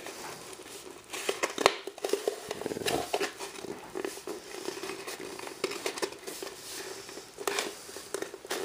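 Wooden bulkhead ring being handled and test-fitted against a fiberglass model jet fuselage: scattered light knocks, clicks and scrapes, with one sharper knock about two seconds in, over a steady low hum.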